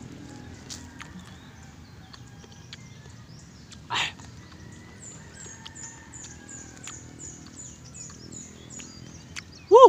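A sharp breathy exhale about four seconds in from a man eating sour calamansi with chili. Underneath, faint high bird chirps repeat about three times a second from about halfway, and a short, loud pitched sound that bends up and down comes near the end.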